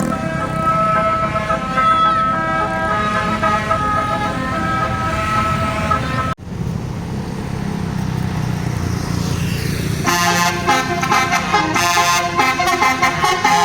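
Indonesian bus telolet horn: a multi-tone musical air horn holding steady chords over a running bus engine for about six seconds. It breaks off abruptly, leaving only engine and road noise. From about ten seconds in, the horn plays a rapid, choppy telolet melody.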